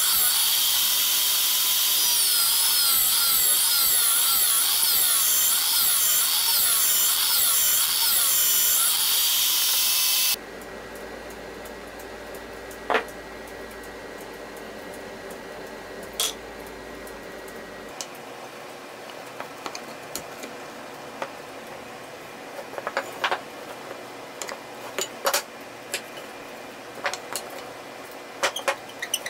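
Bench drill press boring into a wooden stick: a loud, steady whirr of the motor and bit cutting the wood, with wavering high squealing tones, which stops abruptly about ten seconds in. After that, scattered light knocks and clatter of drilled wooden slats being handled and fitted together on a workbench, coming more often in the last ten seconds.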